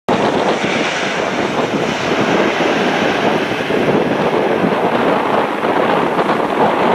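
Airbus A340-500's four Rolls-Royce Trent 500 turbofans running at low ground power: a loud, steady jet rush that cuts in suddenly at the start.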